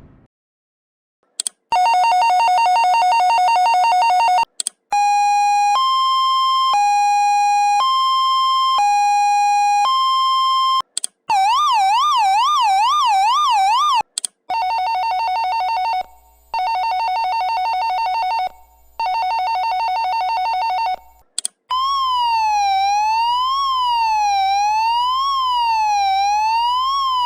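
Electronic alarm buzzers of Qlight signal lights sounding a series of different alarm tones, each a few seconds long with short gaps between them. First a steady two-note tone, then a hi-lo tone changing pitch about once a second, then a fast warble of about two sweeps a second. After that comes a tone pulsing on for about two seconds at a time, and last a slow siren rising and falling about once every second and a half.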